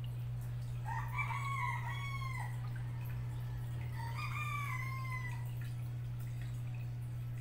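A rooster crows twice, each crow about a second and a half long and falling at the end, over a steady low hum.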